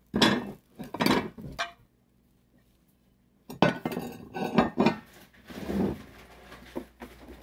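Dinner plates clinking and clattering against each other as they are set down and handled: a quick run of knocks, a pause of about two seconds, then a longer run of clatter.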